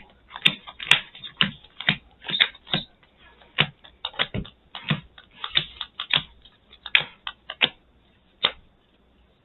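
Irregular series of sharp taps and clicks from playing cards being drawn off a deck and set down on a tabletop as opening hands are drawn. The taps stop near the end.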